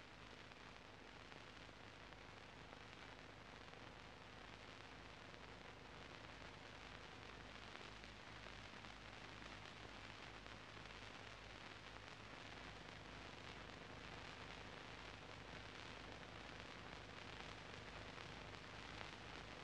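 Near silence: steady background hiss with a low hum underneath, the noise floor of an old film soundtrack.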